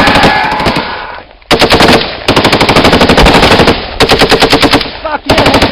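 Several bursts of rapid automatic gunfire, the longest lasting about a second and a half, with short pauses between bursts.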